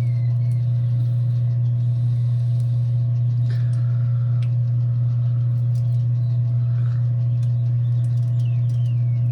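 A loud, steady low hum with faint, short, falling bird-like chirps every second or so above it, and a few light ticks.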